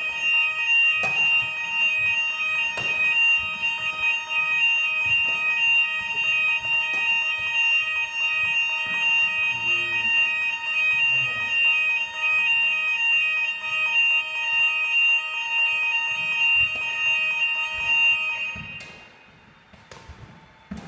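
Fire alarm sounding in a steady continuous tone during a test, then dying away about eighteen seconds in.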